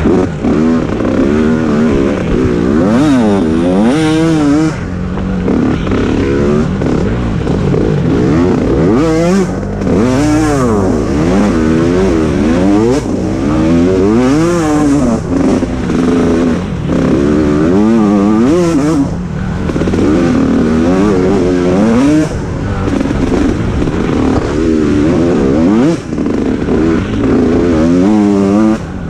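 Senior-class mini dirt bike engine, heard close from the rider's on-board camera, revving hard and repeatedly, its pitch climbing and dropping with each burst of throttle along the trail.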